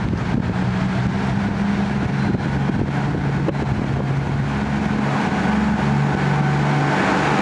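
KiHa 75 series diesel railcar's engines running, with steady engine tones that shift in pitch; a deeper drone swells and the sound grows louder about five seconds in as the railcar gets ready to pull away.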